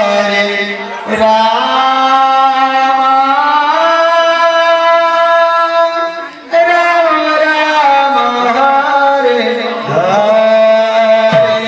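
Sankirtan singing: a voice drawing out long, gliding notes over a steady low drone, with short breaks about a second in and about six seconds in.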